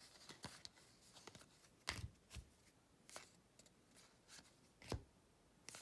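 Baseball trading cards being flipped through by hand: faint sliding of card stock with scattered soft clicks and snaps, the sharpest about two seconds in and again near five seconds.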